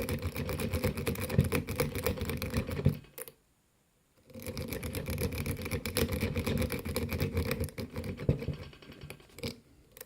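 Lock pick rake scrubbed rapidly in and out of a Tri-Circle 264 padlock's keyway against the pins: a dense run of fast clicking and scraping that stops for about a second a little past three seconds in, then starts again.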